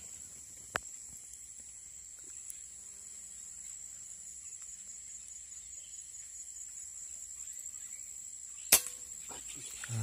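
Insects keep up a steady, high-pitched drone throughout. Near the end a scoped air rifle fires a single sharp shot, the loudest sound, with a short ring after it.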